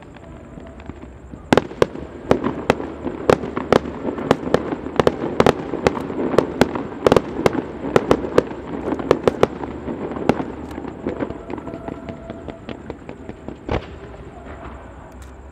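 Fireworks going off in a rapid volley of sharp bangs, starting about a second and a half in and thinning out after about ten seconds, with one more loud bang near the end.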